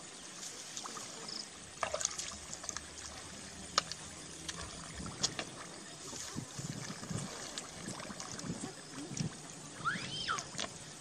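Feet and hands moving through shallow muddy water: sloshing, squelching and trickling, with scattered small clicks.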